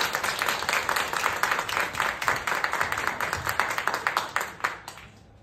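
Audience applauding in a theatre, the clapping fading out near the end.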